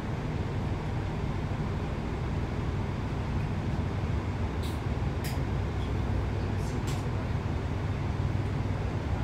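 Steady low rumble inside the passenger saloon of a Class 165 Networker Turbo diesel multiple unit, with a few short, sharp clicks a little past halfway through.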